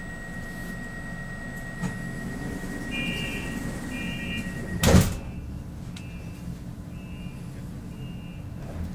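Commuter train's sliding doors closing: a steady electronic tone and a warning beep repeating about once a second, then a loud thump about five seconds in as the doors shut. A steady low hum from the standing train runs under it.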